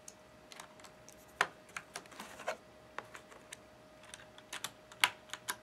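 Irregular light plastic clicks and taps of keycaps being handled, taken from their tray and fitted onto a mechanical keyboard's Cherry MX switches, about a dozen in all.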